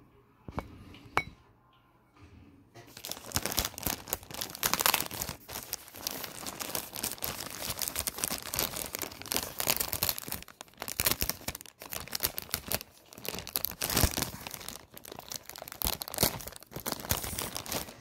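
Thin plastic mailer envelope being opened and handled: a few faint clicks, then from about three seconds in, continuous loud crinkling and rustling of the plastic, with short pauses.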